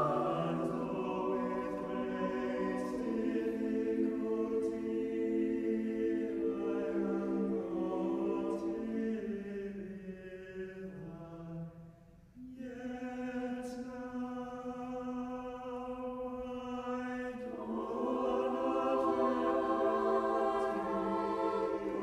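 A choir singing unaccompanied in slow, long-held chords that shift every few seconds, with a short break about twelve seconds in before the singing resumes.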